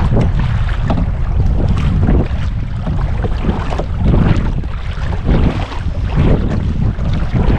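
Wind rumbling on the microphone, with irregular swishes and splashes of canoe paddles dipping into lake water.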